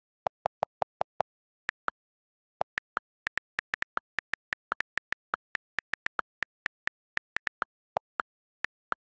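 iPhone on-screen keyboard click sounds from typing, at an uneven typing pace. A quick run of six lower-pitched clicks comes first as text is deleted, then some thirty higher clicks as letters are typed, with a few lower ones mixed in.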